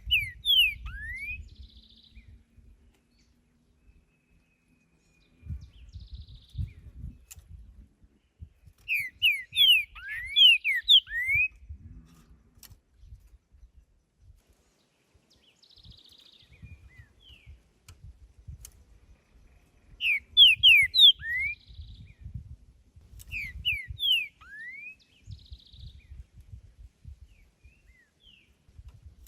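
Green-winged saltator (trinca-ferro) singing: short phrases of quick slurred whistles, four phrases spaced several seconds apart, with fainter buzzy notes in between. A low rumbling noise comes and goes underneath.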